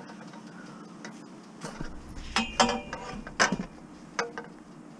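Long thin metal rods of a garden trellis frame clattering and knocking against each other and the car body as they are pushed into a packed car, with several sharp metallic clanks that ring briefly, the loudest about halfway through.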